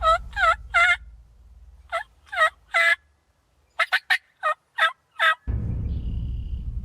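Wild turkey yelping in clear, pitched notes: three yelps, then three more, then a quicker run of about seven short, sharp notes.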